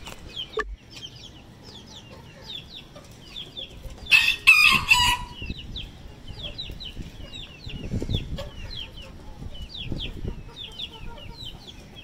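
Chicks peeping over and over in short, high, falling cheeps, with one loud rooster call about four seconds in that lasts about a second, while chickens peck at bread crumbs on bare concrete.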